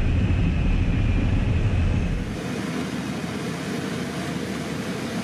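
Cabin noise of a de Havilland Canada Twin Otter's twin turboprops on landing: a loud, heavy low drone. About two seconds in it changes abruptly to a lighter, hissier rushing sound as the aircraft rolls along the runway.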